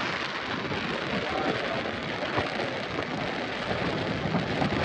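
Steady rush of wind noise on a motorcycle rider's camera microphone while riding, with engine and road noise mixed in beneath.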